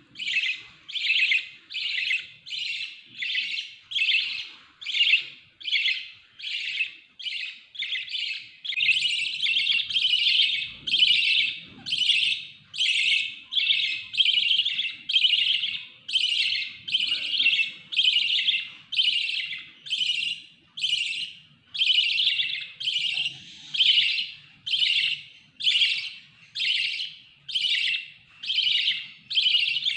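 A budgerigar calling over and over, one loud chirp roughly every two-thirds of a second in a steady, insistent rhythm, some calls louder than others.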